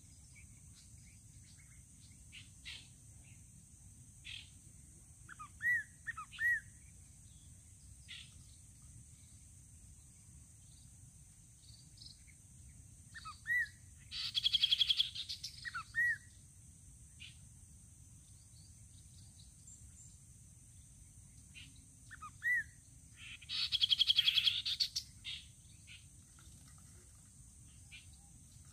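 Babblers calling: scattered short, curved chip notes and two loud, rapid chattering runs about ten seconds apart. A steady high hiss sits underneath.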